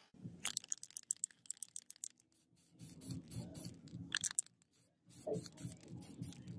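Handling noise as the cleaver is turned in a gloved hand: irregular quick clicks and crackles in bunches, with short pauses between.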